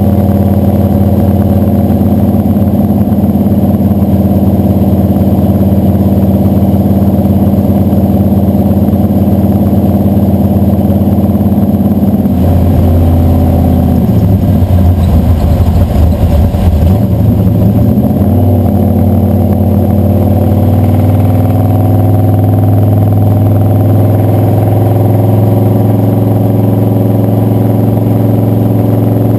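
540-cubic-inch big-block Chevy V8 running as the 1967 Chevrolet C10 drives, heard from beneath the truck with its exhaust and road noise. About halfway through, the engine note changes, dipping and rising again over a few seconds before settling into a new steady pitch.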